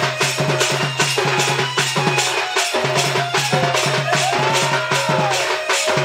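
Sambalpuri danda dance music: a fast, even percussion beat over a sustained low drone, with a melody line that rises and falls in a short glide about four seconds in.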